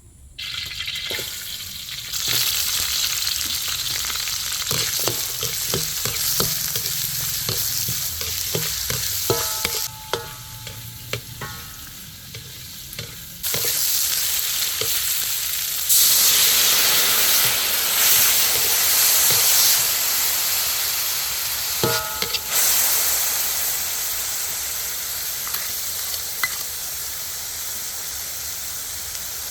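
Food sizzling as it fries in a hot pan. The hiss gets louder in steps and is loudest from about halfway through. Scattered knocks and scrapes of a utensil stirring in the pan fall mostly in the first half.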